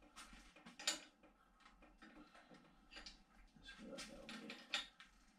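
Faint metal clicks and clinks of a 15 mm spanner working on a BMX pedal as it is tightened onto the crank arm. The sharpest clicks come a little under a second in and near the end.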